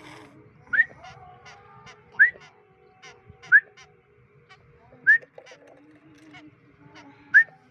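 Human whistling, five short rising whistles about one and a half seconds apart, used as a call signal in free-flight training of a white-breasted woodswallow. Fainter short chirps sound between the whistles.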